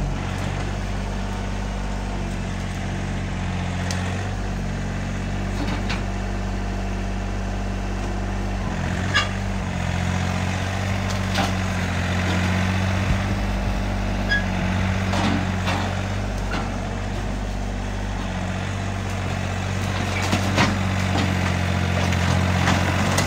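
John Deere compact tractor's diesel engine running steadily while the front-end loader is maneuvered, its engine note shifting several times, with a few sharp knocks.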